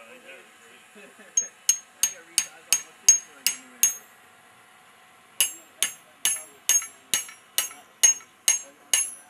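Hand hammer striking a chisel held in a red-hot railroad spike on the anvil, punching the eye of a tomahawk head. Sharp metallic blows with a bright ring after each, about three a second: eight blows, a pause of about a second and a half, then about nine more.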